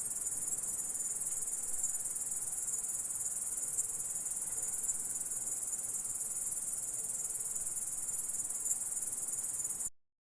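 Grasshopper sound effect: a continuous, high-pitched insect trill that holds steady without a break, then cuts off abruptly near the end.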